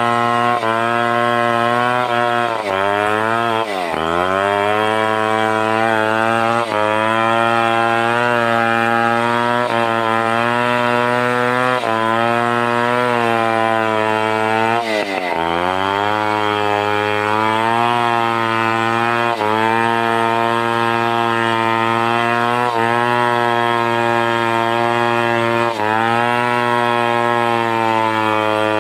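Stihl 070 two-stroke chainsaw running at high speed while cutting timber. Its pitch sags slightly under the cut, drops sharply twice and recovers each time.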